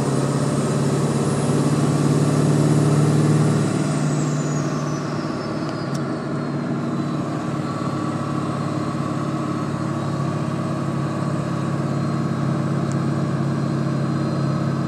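Ford 7.3-litre V8 running with a steady low hum, the unexplained humming noise the owner is asking about. The engine is held a little higher at first and settles back down about four seconds in, while a high whine climbs, holds and falls away with it.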